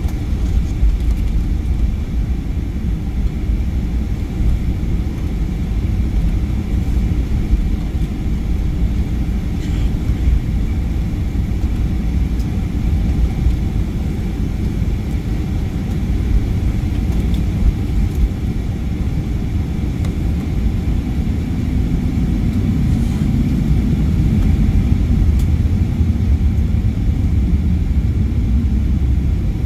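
Cabin noise of a Boeing 737-900ER taxiing: a steady low rumble from its CFM56-7B engines at taxi thrust and the roll along the taxiway, heard from inside the cabin, with a faint steady whine above it.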